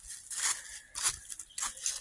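Footsteps crunching and rustling through dry fallen leaves at a quick walking pace, several steps a second apart or less.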